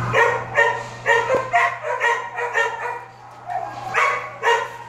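Shelter dogs in kennel runs barking repeatedly, short barks about three a second, with a brief lull about three seconds in before the barking starts up again.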